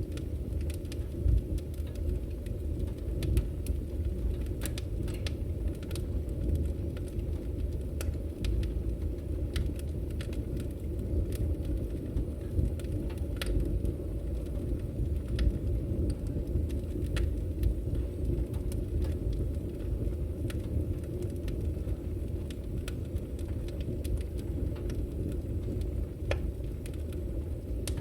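Fire burning in a fireplace: a steady low rumble with irregular sharp crackles and pops throughout.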